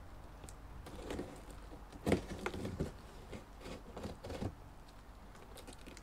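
Cardboard box being opened by hand: a series of short scraping and rustling sounds from the cardboard and packing tape, loudest about two seconds in.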